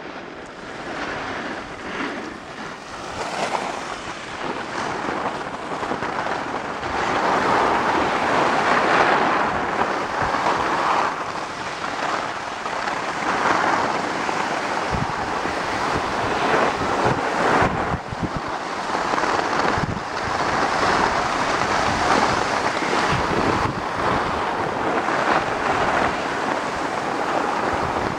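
Skis sliding and scraping over packed snow, swelling and fading in repeated swishes, with wind on the microphone.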